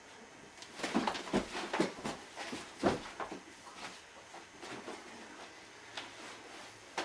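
Scuffle of a close-quarters knife-disarm drill: a quick run of slaps, knocks and thumps from hands and bodies, with feet shuffling on carpet, starting about a second in and lasting two to three seconds, then softer scuffing and a couple of sharp clicks.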